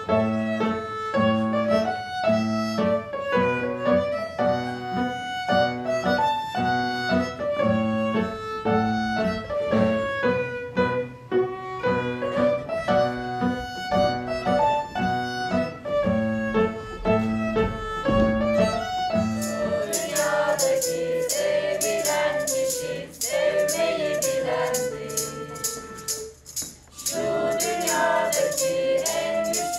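Violin playing a melody over upright piano chords struck on each beat. About twenty seconds in this cuts to a group of young voices singing together, with rattling percussion keeping a steady beat.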